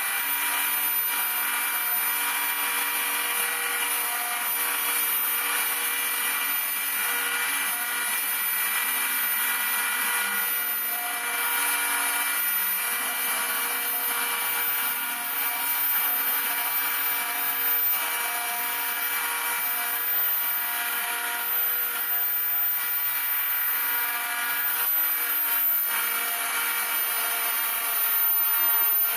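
Homemade CNC router milling aircraft wing ribs: the spindle runs with a steady high whine, and short stepper-motor tones come and go as the axes move.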